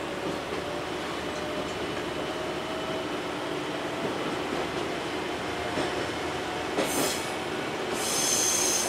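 Diesel railcar running slowly through a station turnout, its engine and rolling noise steady. About seven seconds in the wheels click over the points, and near the end they squeal briefly as the train takes the switch, the loudest part.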